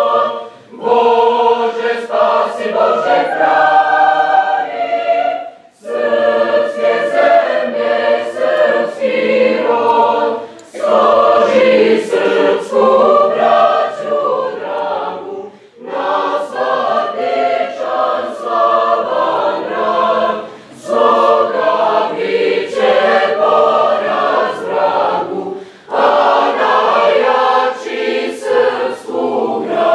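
School choir singing the anthem in long held chords, phrase after phrase about five seconds long, with a short breath between phrases.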